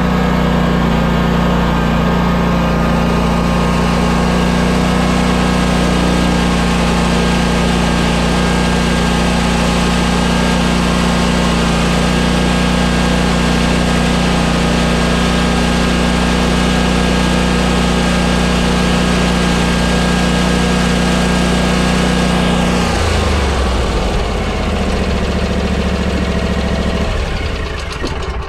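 Commercial stand-on zero-turn mower's engine running steadily with a high whine over it. About two-thirds of the way through, the whine slides down in pitch and the engine note drops, and near the end the engine shuts off.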